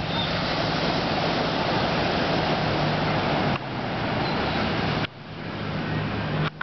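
Steady rushing of surf and wind on the microphone over a low motor hum. The sound drops off sharply three times and swells back.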